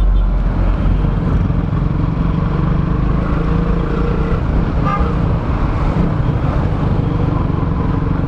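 KTM Duke 200's single-cylinder four-stroke engine running steadily while the bike is ridden.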